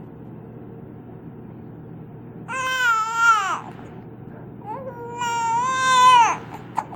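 A baby with the hiccups crying in two long wails, each falling in pitch as it trails off. There is a short sharp sound near the end.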